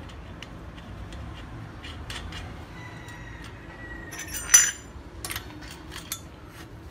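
Metal parts and hand tools clicking and clinking during assembly of a brush cutter's cutting head, with one loud ringing metallic clink about four and a half seconds in.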